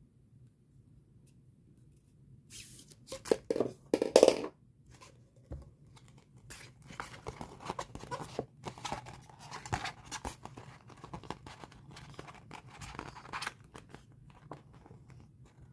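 A burst of loud, sharp scraping and tearing about three to four seconds in as a grey plastic poster tube is opened, then steady paper rustling and crackling as the rolled poster inside is unrolled and smoothed flat by hand.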